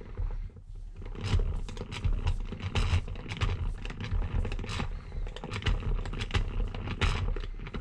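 Rusty three-jaw lathe chuck being wound open with its T-handle chuck key: the scroll and jaws grind and scrape metal on metal, with irregular clicks, as the jaws back out.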